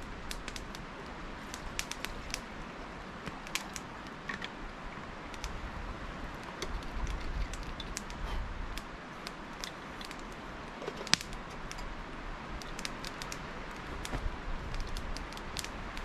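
Campfire crackling, with scattered irregular pops and one louder snap about 11 seconds in.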